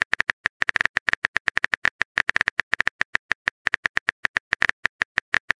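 Rapid phone-keyboard tap clicks, the keypress sound effect of a text message being typed out letter by letter, coming in quick uneven runs of short clicks.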